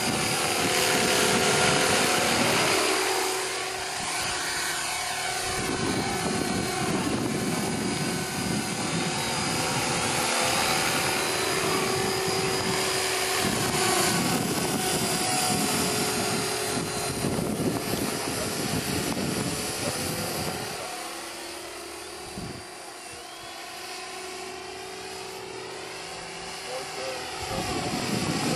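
SJM430 radio-controlled helicopter in flight: a steady rotor and drivetrain whine whose tone sweeps up and down as it moves about the sky. It grows quieter for several seconds near the end as it flies higher and farther off, then louder again.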